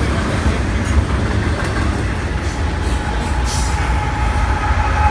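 BNSF double-stack container freight train rolling past, a steady heavy rumble of wheels on rail with brief bursts of hiss. About three and a half seconds in, a thin steady wheel squeal joins in.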